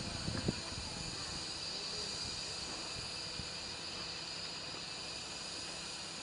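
Narrow-gauge steam locomotives standing in steam, giving off a steady high hiss. A brief knock comes about half a second in.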